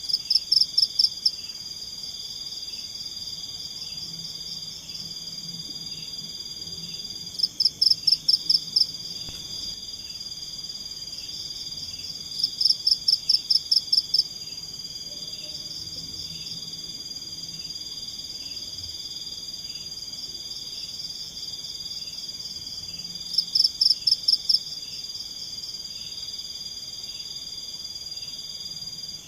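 A night chorus of crickets and other insects: a steady high-pitched trill, broken four times by a burst of loud, rapid pulsed calls of about six or seven pulses a second, each lasting a second or two.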